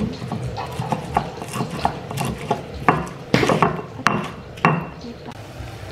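Stone pestle crushing and grinding raw chillies, tomato and garlic in a stone mortar (Indonesian cobek and ulekan). Irregular stone-on-stone scraping and knocks, with a few louder knocks in the second half.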